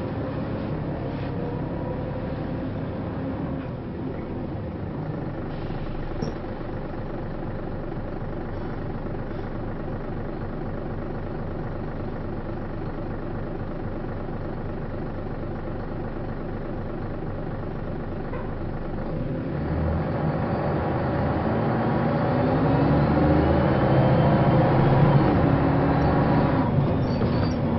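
DAF single-deck bus's diesel engine heard from inside the passenger saloon, ticking over steadily, then growing louder with its note rising as the bus pulls away and accelerates, about two-thirds of the way in.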